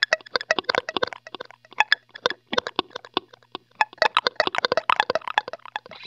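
Electric guitar played through the Line 6 HX Stomp's Glitch Delay, the notes chopped into a rapid stream of short, stuttering blips and clicks, several a second.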